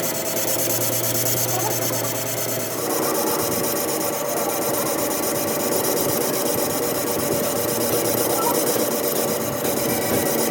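A machine running steadily while metal is worked with a continuous rubbing, scraping sound. Its steady tone changes about three seconds in.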